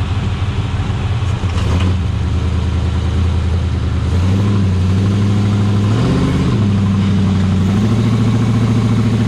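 Rock bouncer buggy's engine running at held revs that step up and down every couple of seconds, with a short rise about six seconds in, as the buggy winches up a steep dirt climb.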